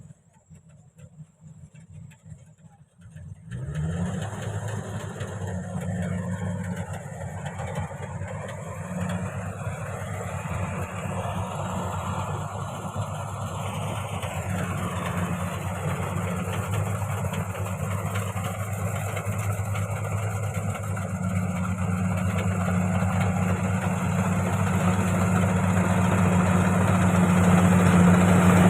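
Rice combine harvester's engine running: quiet at first, then a short rise in pitch after about three and a half seconds, then a steady hum that grows gradually louder toward the end.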